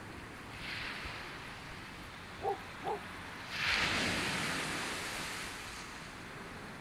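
Steady wash of surf and wind on the beach, swelling into a louder hiss about halfway through and then easing off. Two short distant dog barks come just before it.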